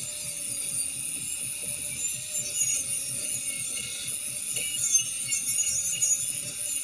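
Hand abrasive work on the spare wheel's surface: a steady hissy rubbing made of fast back-and-forth strokes, as in sanding or scrubbing off old finish and rust.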